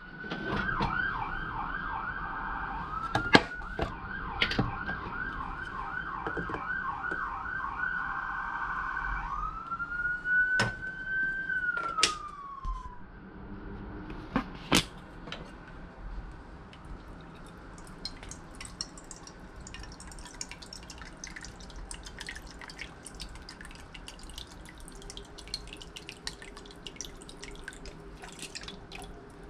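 A siren warbling rapidly up and down for about nine seconds, then switching to one slow rise and fall that fades out about thirteen seconds in. After it, scattered clicks and light clatter of bottles and utensils being handled on a kitchen counter.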